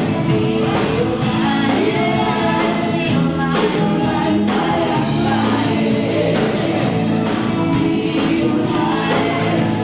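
Live band playing: women's voices singing into microphones over a drum kit, with a steady beat.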